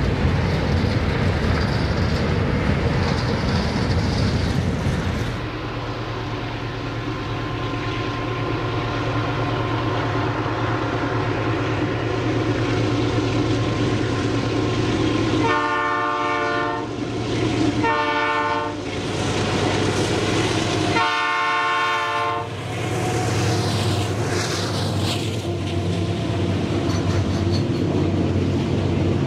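Long loaded freight train: hopper wagons rolling past on the rails, then a diesel-electric locomotive running steadily as it approaches. Midway through, the locomotive sounds its multi-note air horn three times, the last blast the longest. After the horn, its hopper wagons roll by.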